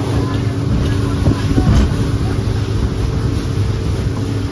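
Motorboat engine running at a steady speed, a constant low hum, with water rushing and splashing along the hull of the small boat under way and a few sharp knocks about a second and a half in.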